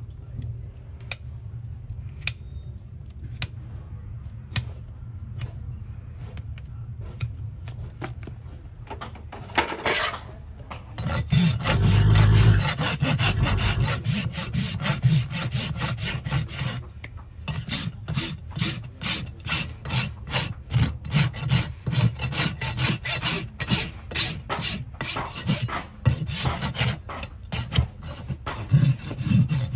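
A farrier's rasp filing a horse's hoof in rhythmic scraping strokes, which start about ten seconds in and carry on to the end. Before the rasping there are scattered sharp clicks as hoof nippers work on the hoof.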